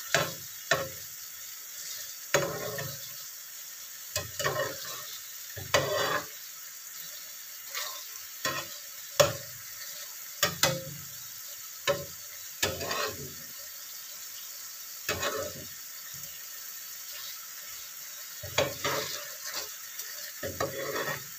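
Spatula stirring chicken feet and eggs in thick sauce in a nonstick frying pan, with irregular scrapes and knocks against the pan a second or two apart. Under them the sauce simmers with a steady sizzle.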